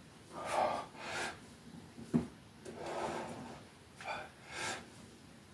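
A man breathing hard in and out with effort, several forceful breaths, while pressing resistance bands overhead. A single sharp click about two seconds in.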